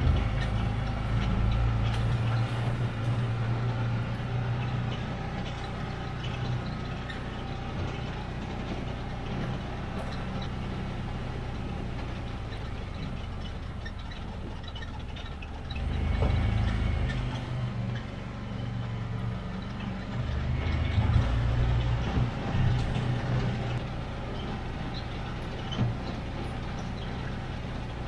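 Side-by-side UTV engine running as it drives over rough pasture, a steady low drone that swells louder with throttle about halfway through and again a few seconds later.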